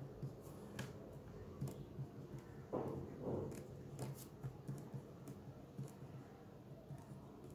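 A pen writing on paper: faint scratches of the tip with small ticks as it touches down, and a longer scratchy stretch about three seconds in, over a faint low hum.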